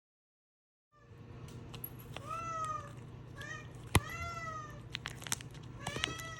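Domestic cats meowing about four times, each call rising and then falling in pitch, with a few sharp clicks among them, the loudest about four seconds in. The first second is silent.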